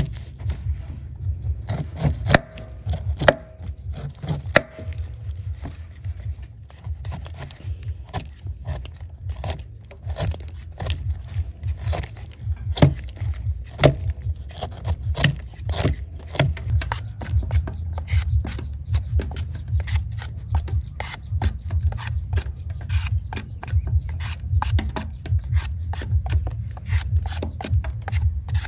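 Repeated short scraping strokes, sparse at first and then coming faster and more regularly, about two or three a second, from about halfway through, over a steady low rumble.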